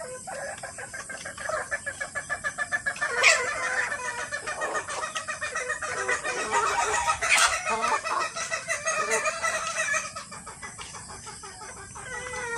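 A flock of gamefowl chickens clucking, with rapid strings of short clucks and calls, and a couple of sharp louder sounds about three and seven seconds in.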